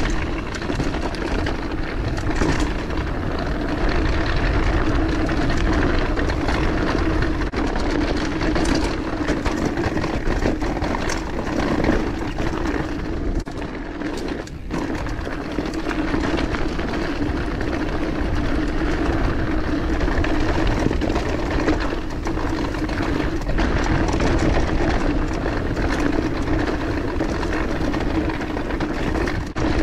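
Mountain bike being ridden on a dirt singletrack trail: steady rolling noise of the tyres and bike with a constant hum, briefly dipping about fourteen seconds in.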